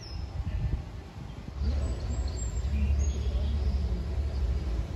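Outdoor field ambience: a low rumble that grows louder about a second and a half in, with a few faint high bird chirps.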